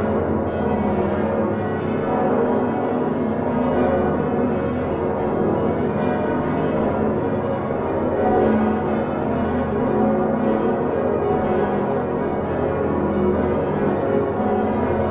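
Full peal of the Utrecht Dom tower bells swinging on straight headstocks. These are six great bells cast by Geryt van Wou in 1505, the largest being the 8-tonne F-sharp Salvator, together with smaller bells added in 1982. The strikes overlap into a dense, continuous clangour of many pitches at a steady level, with no break.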